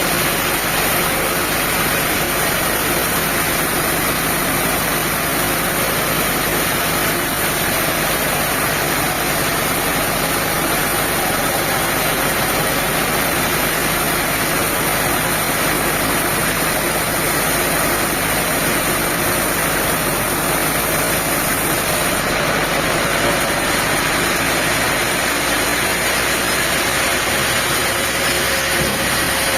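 Sawmill machinery running steadily, a loud, even engine-like noise that holds unchanged throughout.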